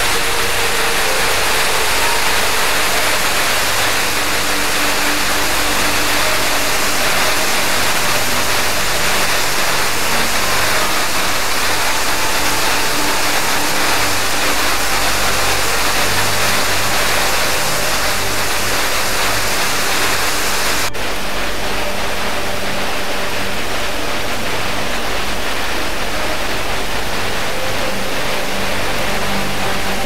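Steady, loud rush of a waterfall, water tumbling in a white-water cascade. About two-thirds of the way through, the sound changes abruptly to a slightly duller rush with less hiss.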